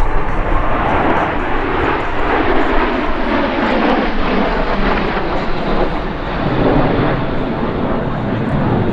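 Aero L-39 Albatros jet trainers flying past, their jet engines making a loud, steady rushing noise.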